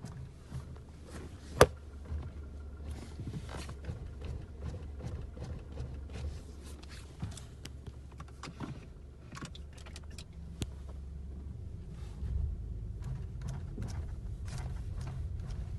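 Skoda Superb mk3 steering rack knocking: irregular sharp knocks and clicks, one much louder about a second and a half in, over a steady low hum. The knock is the sign of a worn steering rack at 150,000 km.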